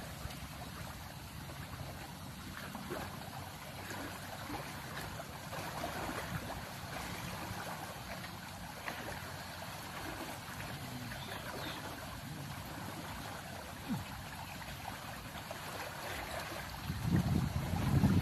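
Floodwater running steadily through a creek while a man wades and works a fishing net in it. Near the end there is a louder rush of splashing as the net is lifted out of the water.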